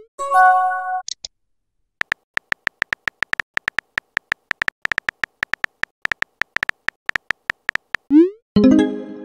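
Messaging-app sound effects. A short electronic chime sounds as a message arrives, then comes a run of rapid keyboard-tap clicks, about five a second. Near the end a quick rising whoosh marks a message being sent, followed by another electronic tone.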